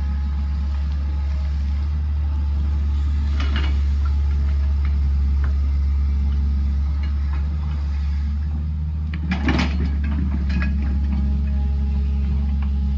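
Tracked excavator's diesel engine running at a steady low drone, with a few short metallic clanks and knocks, the loudest cluster about nine and a half seconds in.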